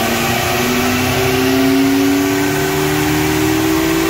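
Zotye Z300's engine running on a chassis dyno, its revs climbing slowly and steadily under load.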